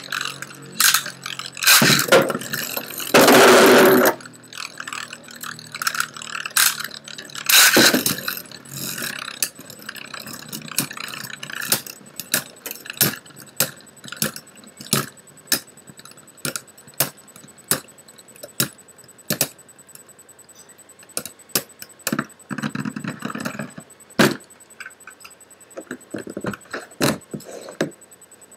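Two Metal Fusion Beyblade spinning tops, Storm Pegasus and Lightning L-Drago, battling in a plastic stadium: loud scraping grinds in the first several seconds as they clash, then a long run of sharp irregular clicks as they strike each other and the stadium walls, thinning out toward the end as they lose spin.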